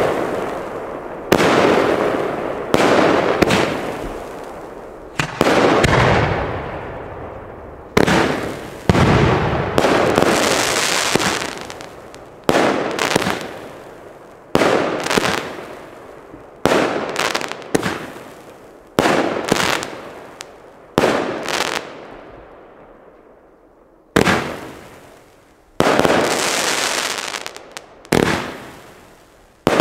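Weco Goldfinger 30 mm firework battery firing its shots, about twenty bangs one every second or two, each trailing off into a fading hiss. Near the end the firing pauses for about two seconds before going on.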